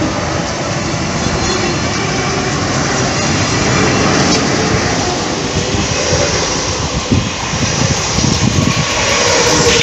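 A train running on the rails: steady, dense rail noise with a strong low end.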